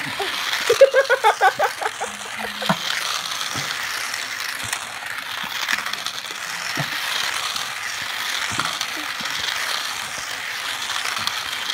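Toy slot-car racing set running: small electric motors whirring and the cars rattling along the plastic track, with scattered small clicks.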